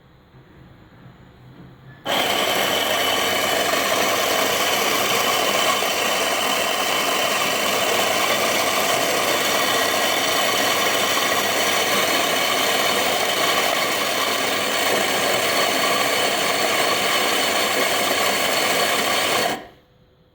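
Electric coffee grinder running: its motor switches on about two seconds in, grinds with a loud, steady whirring noise for about seventeen seconds, then cuts off suddenly near the end.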